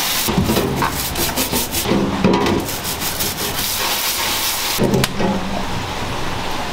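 A stiff brush scrubbing a raw king crab's spiny shell on a perforated steel tray, a steady rasping with short squeaks. Near the end kitchen scissors cut into the shell with a few sharp clicks.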